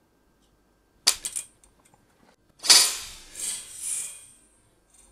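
Heatsink cooler of a Radeon RX 580 graphics card being pulled off the board: a few sharp clicks about a second in, then a loud sudden snap near the middle that trails off over about two seconds as it comes free. The cooler was held well stuck by old, hardened thermal paste.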